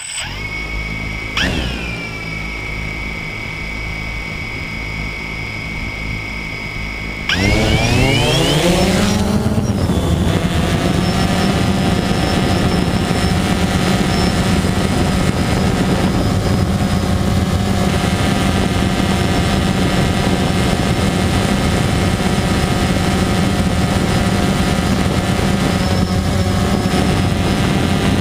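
DJI Phantom 2 quadcopter's four T-Motor MN2214 brushless motors and propellers, close to the drone-mounted camera. The motors start up suddenly and spin at idle with a steady whine. About seven seconds in they throttle up for takeoff in a louder whine that rises in pitch over a couple of seconds, then settles into a steady hover hum.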